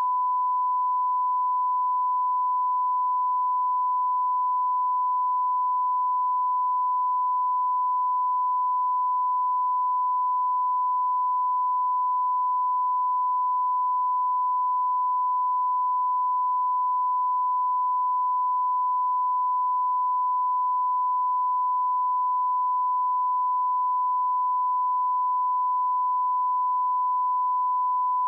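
A 1 kHz line-up test tone, the reference tone that accompanies SMPTE colour bars, held as one steady, unbroken pitch.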